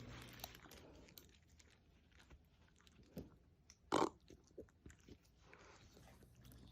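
A Shiba Inu's soft chewing and lip-licking clicks, then one short, loud burp about four seconds in.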